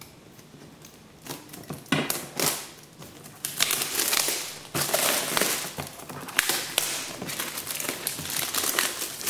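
Clear plastic shrink wrap crinkling as it is torn and peeled off a cardboard box. It starts about two seconds in, in short rustles that become a busy, continuous crackle after a few seconds.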